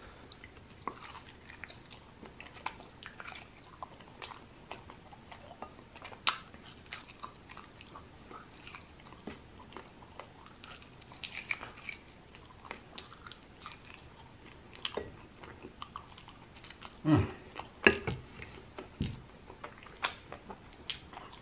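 Close-miked chewing and lip-smacking from a man eating sauced chicken wings off the bone, with soft wet clicks scattered throughout. A few louder mouth sounds come near the end.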